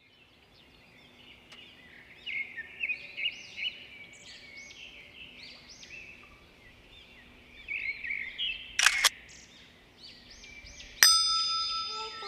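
Many small birds chirping in quick, overlapping high calls, fading in. A short swish comes about nine seconds in, and a bright ringing chime strikes near the end, the loudest sound.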